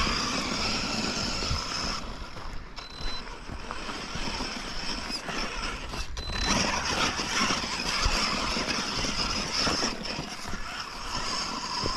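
HSP Brontosaurus 1/10 RC monster truck climbing a rocky dirt hill, its electric motor and drivetrain running under throttle that comes and goes. The freshly repaired rear differential holds under the load, with no slipping or grinding.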